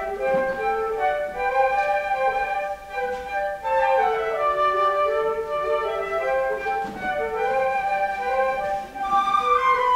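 Instrumental postlude music at the end of a church service: a sustained, flute-like melody moving over held accompanying notes.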